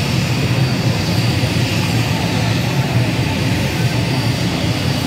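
Aircraft engines running steadily, a constant low noise with a faint high whine over it.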